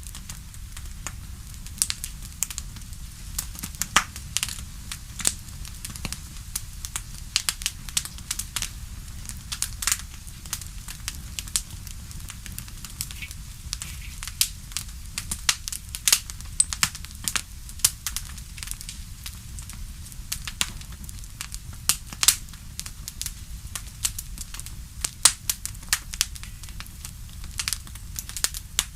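Wood fire crackling and popping in a fireplace: many sharp irregular pops over a steady low rumble of the flames.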